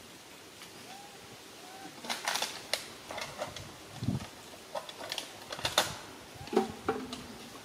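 Dry fallen leaves crackling and crunching in irregular bursts as a monkey walks over them, starting about two seconds in. Faint short chirps sound now and then behind them.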